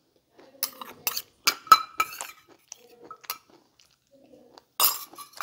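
Metal spoon clinking and scraping against a small stainless steel bowl while eating from it: a run of sharp clinks in the first couple of seconds, another a little later, and a louder one near the end.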